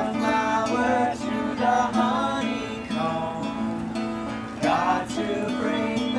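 Live acoustic guitar being strummed, with voices singing over it.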